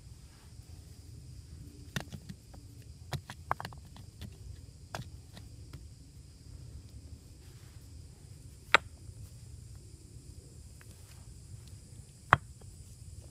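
Scattered sharp knocks and clicks from hands-on camp work: a cluster between two and five seconds in, then two louder single knocks about nine and twelve seconds in, over a faint steady high-pitched hum.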